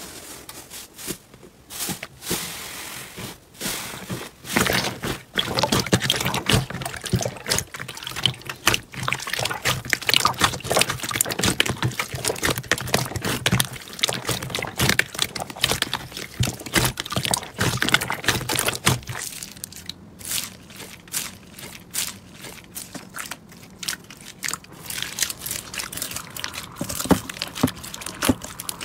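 Hands squeezing and kneading slime: dense, irregular wet clicks, pops and squelches as the sticky slime is pressed, folded and pulled apart.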